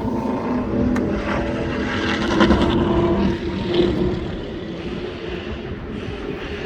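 Steady drone of a vehicle engine and road noise at speed, with a few brief louder peaks in the first half, then a little quieter.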